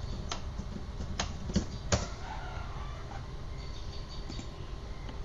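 Several sharp computer-mouse clicks, the two loudest about a second and a half and two seconds in, over a steady low hum. Faint high bird chirps come in near the end.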